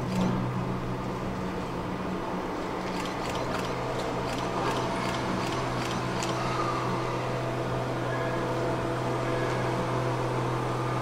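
Chichibu Railway Deki 300-class electric locomotive creeping slowly up to a train for coupling, its equipment humming steadily, with faint clicks and a few short squeals from the running gear.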